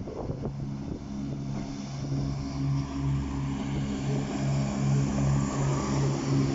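Level crossing warning alarm sounding, a low pulsing tone about three times a second, while a train's rumble grows louder from about two seconds in.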